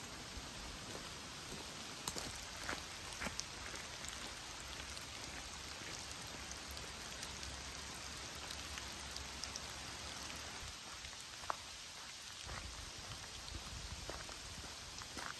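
Steady rain falling on woodland foliage and leaf litter, with a few sharp taps now and then.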